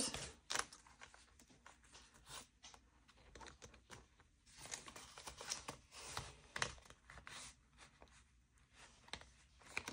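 Faint rustling and crinkling of paper cash and envelopes being handled, with scattered light clicks and taps.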